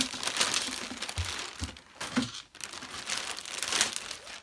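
Packaging crinkling and rustling as the albums and their posters are handled, with a couple of soft low thumps about a second and a half in.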